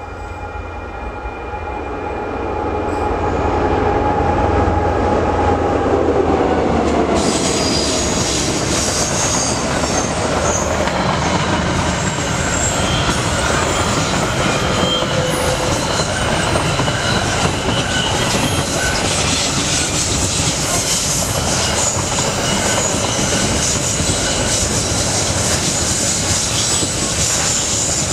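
A freight train passing close by. The locomotive's note is heard first, growing louder and falling in pitch as it goes past. From about seven seconds in, the wagons roll by in a continuous rumble and clatter, with short high wheel squeals coming and going.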